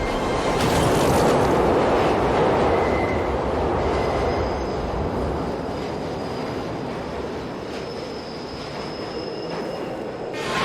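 Subway train rushing past on the tracks: a dense, steady rumble, loudest about a second in and easing after, with a faint high wheel squeal.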